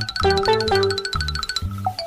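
Bouncy, upbeat children's background music: quick plucked or mallet-like notes over a repeating bass line with fast ticking percussion.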